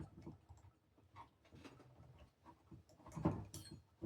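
Faint, scattered small clicks and taps of small engine parts and a hand tool being handled while a throttle linkage is fitted, with a louder bout of handling noise about three seconds in.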